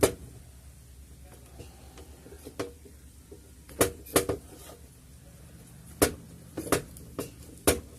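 Irregular short clicks and taps of small parts and wires being handled on a workbench, as soldered FPV motor leads are unstuck from sticky tape.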